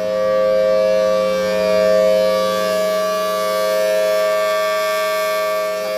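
Federal Signal Thunderbolt 1000 B-series outdoor warning siren sounding a steady, unwavering tone at full pitch during its scheduled test.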